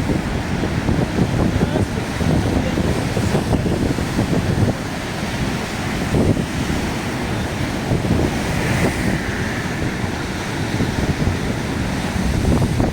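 Strong wind buffeting the microphone in uneven gusts, over the steady rush of heavy surf.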